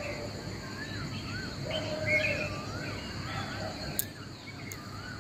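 Birds singing at dawn: repeated whistled notes that rise and fall, over a steady low background hum of outdoor noise. A single brief click comes about four seconds in.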